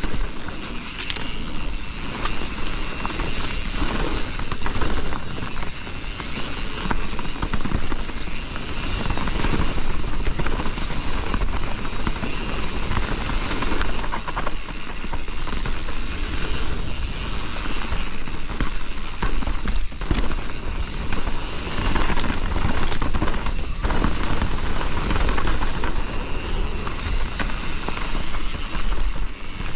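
Privateer 161 enduro mountain bike riding down a dirt trail: wind buffeting the microphone, tyres rolling over the ground, and short knocks and rattles from the bike over bumps.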